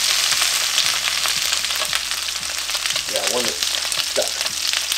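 Cubed potatoes sizzling and splattering in hot olive oil and butter in a cast iron skillet, with a steady crackle of spitting oil, while a slotted spatula turns them over in the pan.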